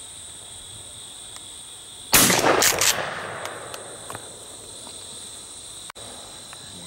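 A shotgun firing at a passing mourning dove about two seconds in: a loud blast, further sharp cracks close behind it within a second, and echo dying away over the next second. Field crickets and insects keep up a steady high buzz underneath.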